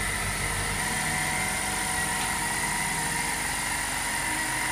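Air compressor running steadily, a constant drone and hum as it fills its tank with air.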